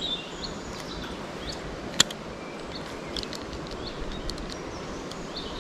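Outdoor riverside ambience: a steady hiss of background noise with short bird chirps, and a single sharp click about two seconds in.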